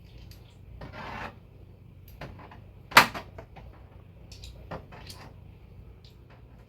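Hand tools being handled and rummaged out of a tool bag: a brief scraping rustle about a second in, a sharp clack about three seconds in, and several lighter clicks.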